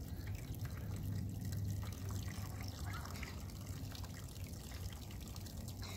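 Muriatic acid trickling in a thin, steady pour from a plastic gallon jug into a plastic toolbox over a steel crankshaft, with a low steady hum underneath.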